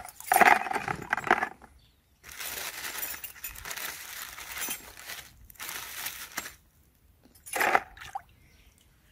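Rusty iron nails clinking against one another and the plastic bucket as hands stir them in the water, with water swishing in between: loudest in the first second and a half and again briefly near the end.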